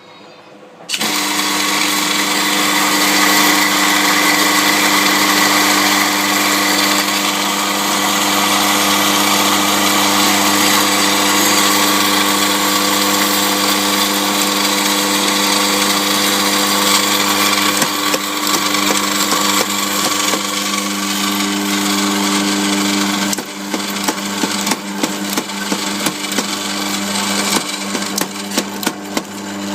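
La Cimbali Cadet burr coffee grinder switching on about a second in: its electric motor hums steadily while it grinds coffee beans with a dense grinding noise. Near the end the grinding noise drops away into rapid, irregular crackles over the continuing motor hum.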